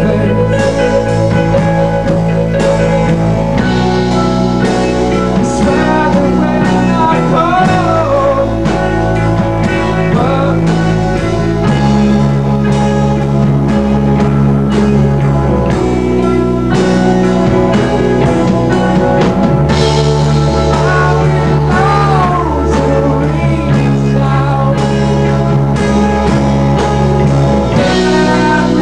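Four-piece rock band playing live: electric guitars over bass guitar and drums, with a melody line sliding between pitches and the bass changing notes every few seconds.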